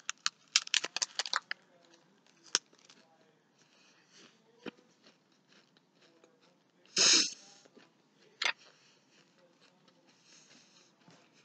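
A person chewing a mouthful of crunchy dried flavoured mealworms: a quick run of crunches near the start, then scattered single crunches, with one louder noisy burst about seven seconds in.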